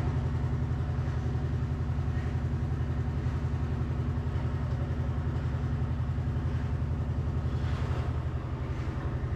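Electric refrigeration vacuum pump (DSZH) running steadily, a low hum with a fast, even chugging pulse, as it evacuates a split AC's refrigerant lines.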